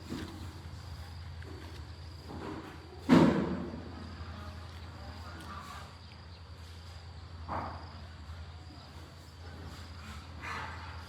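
A few scattered knocks or thuds, the loudest about three seconds in, over a steady low hum and a faint high whine.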